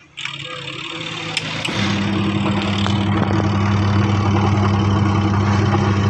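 Toshiba washing machine's timer knob turned with a few sharp clicks, then about two seconds in the wash motor starts and runs with a steady hum: the newly fitted aftermarket six-wire timer is working.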